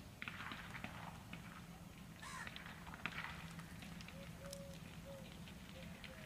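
Low steady hum of a diesel locomotive's engine as it moves slowly, with birds calling over it: a harsh call about two and a half seconds in, and short chirps and whistles throughout.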